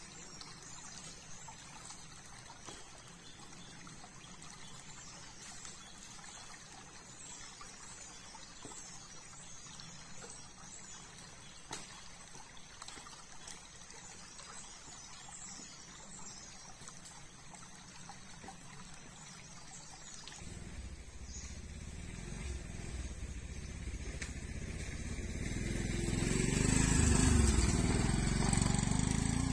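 Shallow stream trickling over rocks, with faint high chirping above it. About two-thirds of the way through, a small motorcycle's engine comes in and grows steadily louder, loudest near the end as the bike rides along the forest track.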